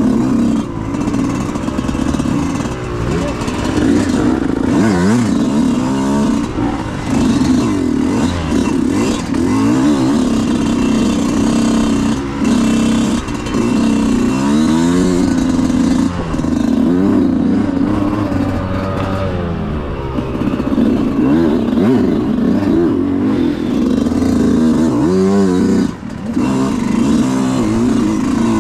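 Enduro dirt bike engine revving up and down over and over as the throttle is worked on and off, with a brief drop about two seconds before the end.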